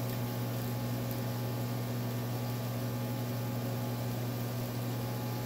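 Microwave oven running: a steady electrical hum with a fan-like hiss.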